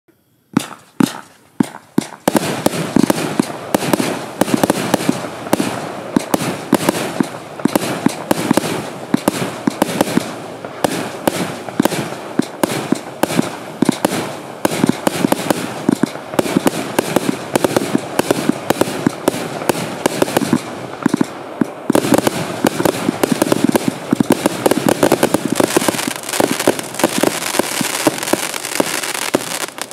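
412-shot compound fireworks cake firing: a few single shots about half a second apart at first, then from about two seconds in a rapid, unbroken volley of launches, bursts and crackling. It thins briefly about 21 seconds in, then goes dense again.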